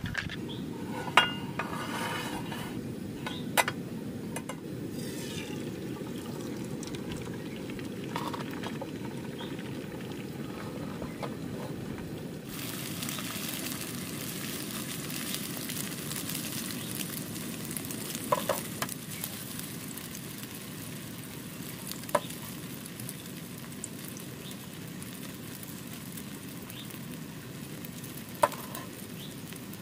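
Beaten eggs stirred with a metal spoon in a plastic bowl, with scattered clicks of the spoon against the bowl. About twelve seconds in, the sound changes to beaten eggs frying in a small pan on a portable gas stove, sizzling steadily, with a few sharp clinks.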